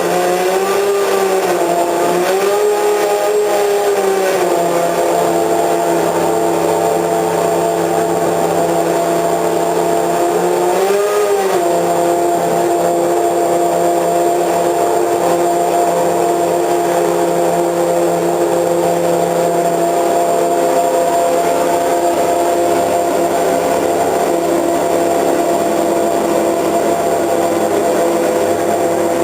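Racing car engine running loud at steady, high revs, with small blips in pitch near the start and about eleven seconds in.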